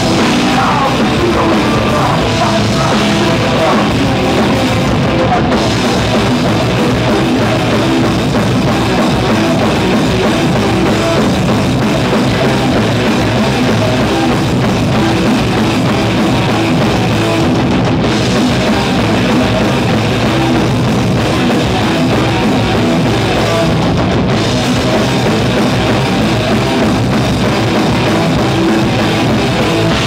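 A rock band playing live and loud: electric guitars, bass guitar and a drum kit, with a singer on the microphone.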